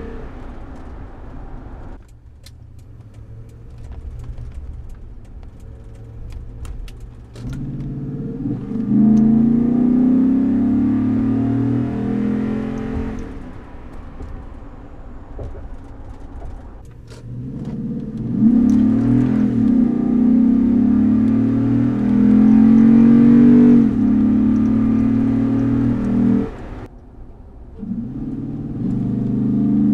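2008 Toyota Tundra's 5.7-litre V8 breathing through a K&N cold air intake, heard from inside the cab. It pulls hard three times, the engine note rising in pitch, getting loud and dropping back, with quieter stretches of light cruising between.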